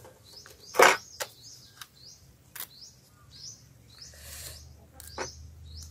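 A small bird chirping over and over, short falling chirps about twice a second. A few sharp clicks cut in, the loudest about a second in.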